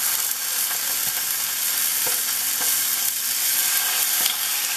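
Skin-side-down chicken breast searing in olive oil in a hot skillet: a steady frying sizzle with a few faint pops.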